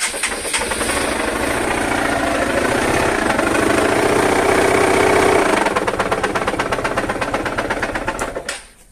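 Honda CG 125 Fan's single-cylinder four-stroke engine running with an ugly mechanical noise. It gets louder over the first five seconds or so, drops back, and stops shortly before the end. The mechanic takes it for the magneto having been struck in the accident and knocking the crankshaft out of line.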